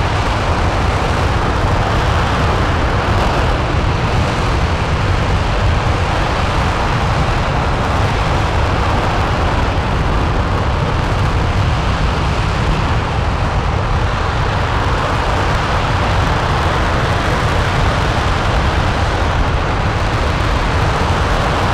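RS-25 liquid-hydrogen/liquid-oxygen rocket engine (developmental engine E0525) firing steadily at full run during a hot-fire test: a loud, continuous rushing noise with a deep rumble underneath, holding level without a break.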